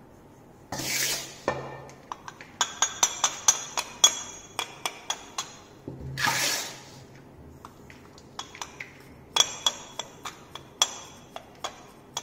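Steel trowel clinking and tapping against a metal mixing pan and the Vicat mould as cement paste is scooped and packed into the mould, in quick runs of sharp ringing clinks. Two longer scrapes of the trowel across the pan come about a second in and about six seconds in.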